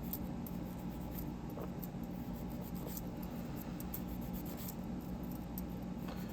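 Faint, light scratching and rubbing with a few small ticks from small metal fidget-toy parts being worked by hand, over a steady low hum.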